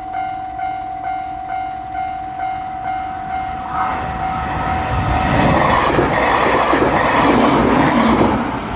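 A Japanese railroad crossing warning bell rings with a steady tone and quick, even strikes, about two and a half a second. From about four seconds in, a JR Shikoku 8000 series limited express electric train passes through the crossing, its wheel and rail noise rising to cover the bell until near the end.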